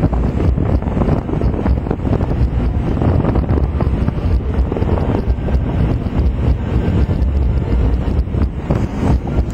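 Wind buffeting the camera's microphone on an open ship deck: a loud, uneven low rumble.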